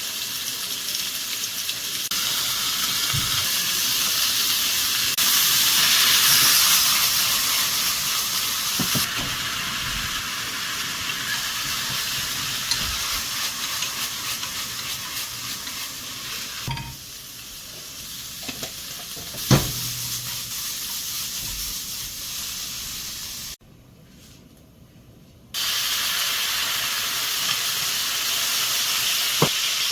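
Food sizzling in a hot frying pan, a steady frying hiss with a few sharp clinks of a utensil against the pan. The sound drops away abruptly for about two seconds near the middle, then returns.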